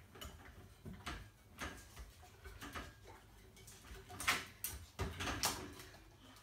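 A dog clambering over a pet gate: scattered faint knocks and rattles of the gate. They are loudest about four to five and a half seconds in, as the dog tips over the top and drops to the floor.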